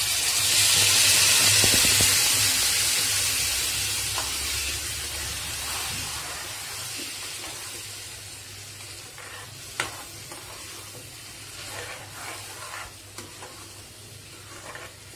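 Tomato puree poured into hot spiced oil in a kadhai sizzles loudly. The sizzle is strongest in the first couple of seconds and dies down slowly as the puree is stirred. A metal spoon clicks against the pan now and then, once sharply about ten seconds in.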